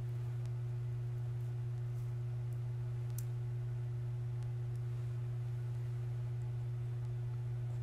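Steady low electrical hum at an unchanging level, with a few faint light clicks, the clearest about three seconds in.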